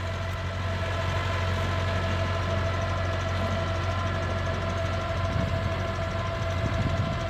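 Old Mahindra 575 DI tractor's four-cylinder diesel running steadily, a low engine hum with a steady higher whine over it; the owner says its gearbox makes far too much noise.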